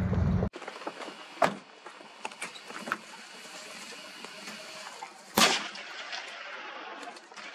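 A pickup truck's engine running on a dirt track, cut off abruptly half a second in. Then, over faint outdoor background, two sharp bangs about four seconds apart, the second louder and followed by a short ringing tail.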